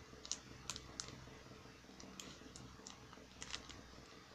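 Scissors snipping through the edge of a thin sealed package, a string of short, faint cutting clicks, about nine snips.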